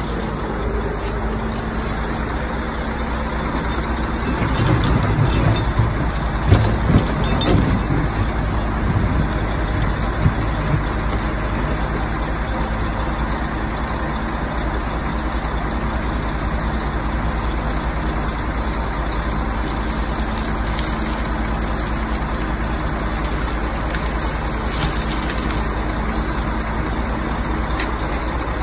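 Yanmar mini excavator's diesel engine running steadily as it digs. Between about four and eleven seconds in there is a stretch of louder, uneven knocks and scrapes as the bucket works the soil.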